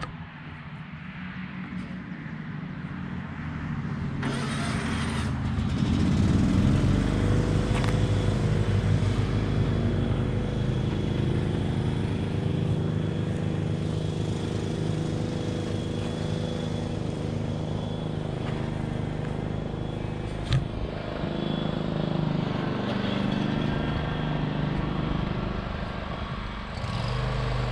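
Riding lawn mower engine running at a steady speed, coming in about four seconds in and holding steady, with a brief sharp click about twenty seconds in.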